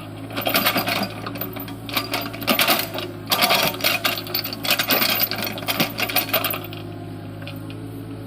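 Tata Hitachi excavator's diesel engine running steadily, overlaid with repeated bouts of loud metallic clanking and rattling from the working machine that stop about six and a half seconds in.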